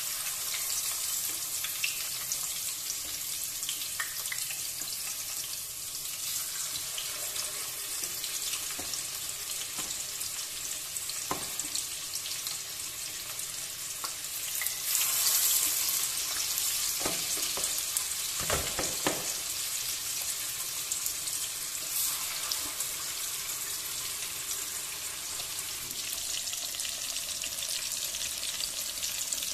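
Marinated chicken pieces shallow-frying in hot oil with curry leaves: a steady sizzle that surges louder for a moment about fifteen seconds in, as another piece goes into the oil.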